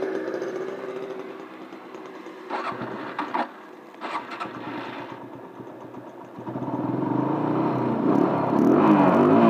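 Motorcycle engine fading out as the tank runs down to reserve, with a few clicks and knocks in the quiet spell. It then picks up again about six and a half seconds in and revs as the bike gets going.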